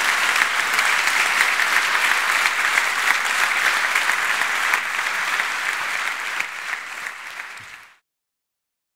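Audience applauding steadily, then dying down and cutting off abruptly near the end.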